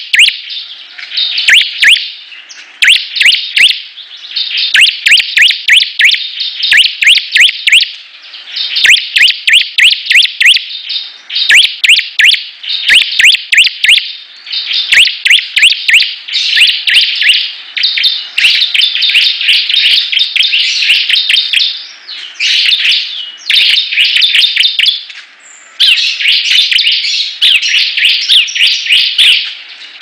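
Bar-winged prinia (ciblek) in full, energetic song: loud, rapid runs of sharp, high chirps, several a second, broken by short pauses every few seconds.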